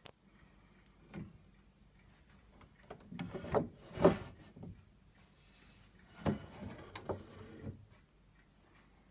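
Wooden knocks and rubbing in two short clusters, the loudest knock about four seconds in; no organ notes sound.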